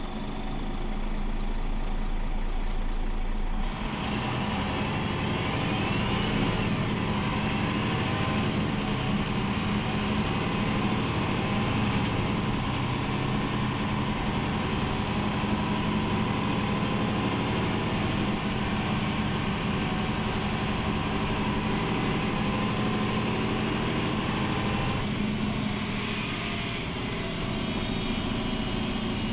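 Inside the cabin of a 2003 MAN NL263 low-floor city bus: its MAN D2866LUH23 straight-six diesel idles, then from about four seconds in it pulls harder as the bus moves off. Steady engine and road noise follow, easing slightly near the end.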